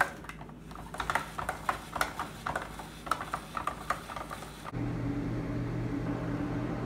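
Hand-cranked countertop spiralizer cutting zucchini into noodles: a run of irregular clicks and crackles from the blade and crank. A little over two-thirds of the way through, this gives way abruptly to a steady low hum.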